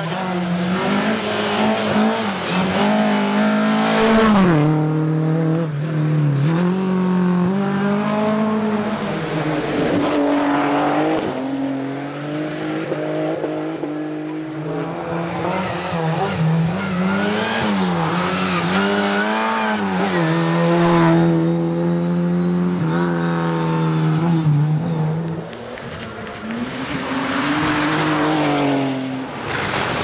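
Lada rally cars' engines revving hard, the pitch climbing and falling back again and again through gear changes and lifts as the cars pass one after another. The sound dips briefly in level shortly before the end.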